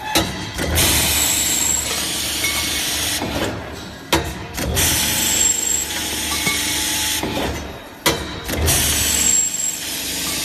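Automatic pipe cutting machine working through its cycle: a sharp clack, then about three seconds of loud hissing cutting noise with a brief high whine, then a short lull. The cycle repeats about every four seconds, three times.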